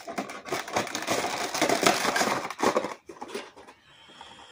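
Packaging being handled: crinkling and rustling of plastic and cardboard with many small crackles, dying down about three seconds in.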